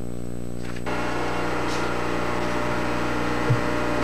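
Metal engine lathe running with a steady machine hum; about a second in, a rougher, hissier noise joins as the single-point tool cuts along the turning workpiece, reducing its outside diameter. A short low thump comes near the end.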